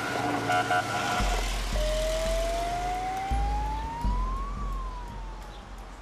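Car siren: a few short beeps, then one slow wail that rises for about three seconds and falls away, over a low engine rumble as the vehicle pulls off.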